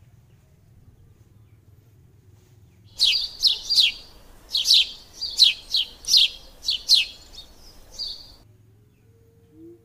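A bird chirping: about a dozen short, quick calls, each sweeping down in pitch, over a faint hiss. They start about three seconds in and stop about a second before the end.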